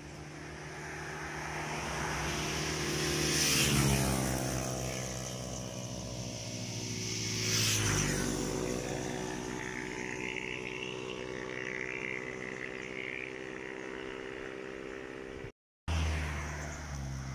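Motor vehicles going past one after the other, each growing louder and dropping in pitch as it passes, about four seconds apart; an engine then keeps running steadily. The sound cuts out for a moment near the end.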